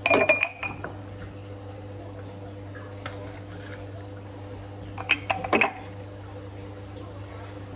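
Dishes and glassware clinking in two short clusters, one at the start and another about five seconds later, over a steady low electrical hum.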